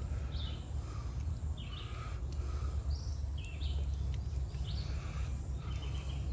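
A bird calling over and over, a short call roughly once a second, over a steady low rumble.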